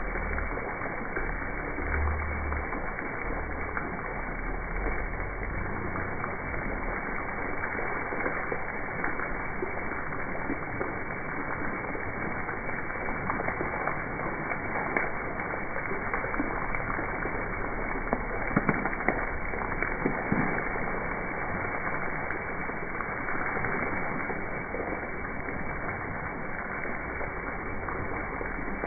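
Elephant-statue fountain spouting water that splashes steadily into its basin.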